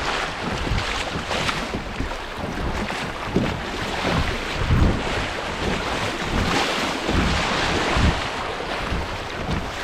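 Creek water rushing through small rapids around a kayak, a steady loud wash, with wind buffeting the microphone in irregular low gusts.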